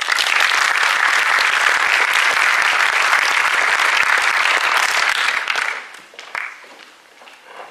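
Audience applause: dense clapping that starts abruptly, runs for about six seconds, then dies away.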